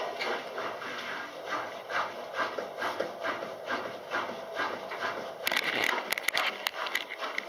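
A dog panting steadily and rhythmically close by, about two to three breaths a second, with a brief run of sharp clicks about three-quarters of the way through.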